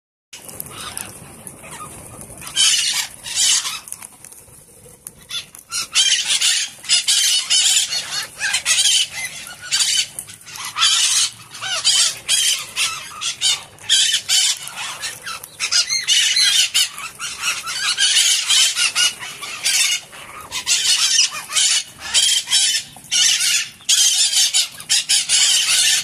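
A flock of white-eyed parakeets (maritacas) screeching: shrill, harsh calls in quick runs one after another, starting about two and a half seconds in after a quieter opening.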